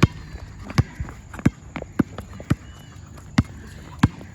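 A basketball bouncing on a hard court, about eight sharp bounces at an uneven pace.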